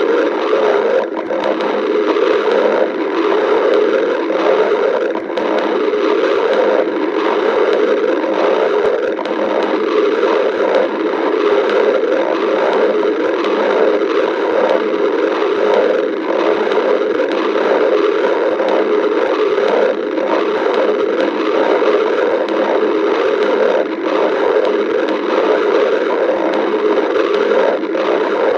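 A person's stomach growling and gurgling continuously, without pauses.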